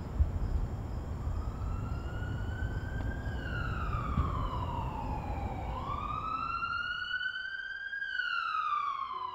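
Ambulance siren wailing, its pitch slowly rising and falling about every five seconds, over a low outdoor rumble that drops away near the end.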